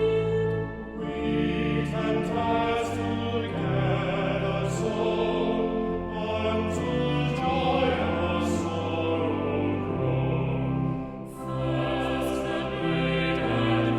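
Choir singing slow sacred choral music over sustained low accompaniment, in long held phrases with short breaths between them about a second in and again near eleven seconds.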